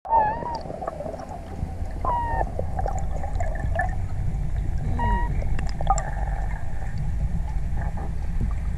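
Underwater ambience picked up by a diver's camera: a steady low rumble of water with scattered sharp clicks and a few short squeaky tones, near the start, about two seconds in and about five seconds in.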